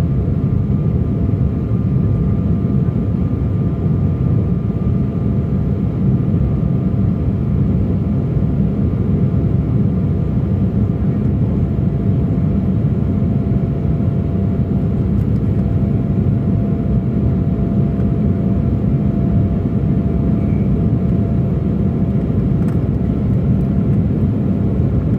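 Steady cabin noise inside an Embraer E175 in its climb after takeoff: the low rumble of its twin GE CF34 turbofans and airflow, with a faint steady whine.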